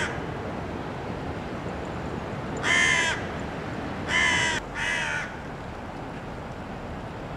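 A crow cawing three times: harsh calls about half a second each, the last two in quick succession. A steady background hiss runs underneath.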